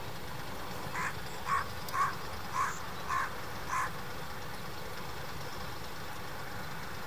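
Carrion crow cawing six times in a quick series, about two calls a second, over a steady low rumble.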